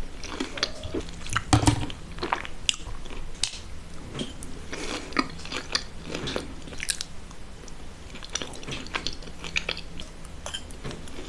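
Close-miked eating: a person biting and chewing crunchy food, with a run of irregular crisp crunches and crackles and one heavier bite about a second and a half in.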